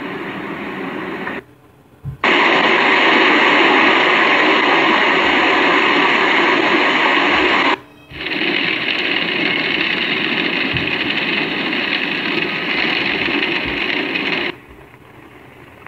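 Loud, steady roar of a severe storm's wind and rain from tornado footage. It comes in after a short lull about two seconds in, breaks off briefly near the middle, and drops away near the end.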